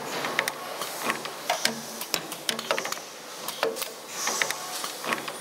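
Simco CNC-620RWE spring forming machine running, coiling wire and bending the hooks of tension springs: a quick, irregular run of sharp metallic clicks and clacks from the tooling, with a brief hiss about four seconds in.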